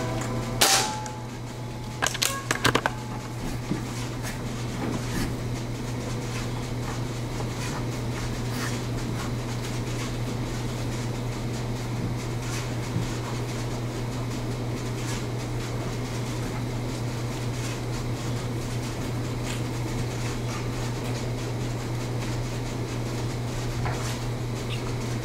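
A single sharp shot from a Benjamin Marauder Woods Walker .22 precharged pneumatic air gun about half a second in, then a quick cluster of clicks about two seconds in, over a steady low hum.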